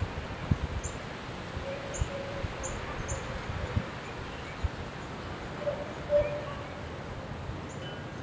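Wind gusting on the microphone with a leafy rustle, and a bird giving short high chirps, several in the first three seconds and one near the end. A lower tonal call comes in twice, loudest about six seconds in.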